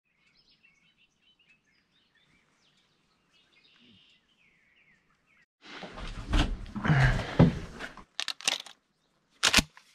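Faint bird chirps, then about two seconds of loud rustling handling noise, followed by a few sharp clicks near the end.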